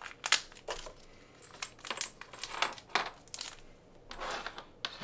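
Hands handling small RC car parts (turnbuckles with plastic ball ends), giving a string of light clicks and rattles, with a short rustle about four seconds in.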